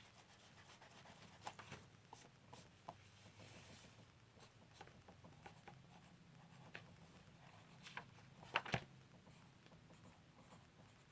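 Pen writing on paper: faint scratching with small ticks, and two sharp clicks about three-quarters of the way through.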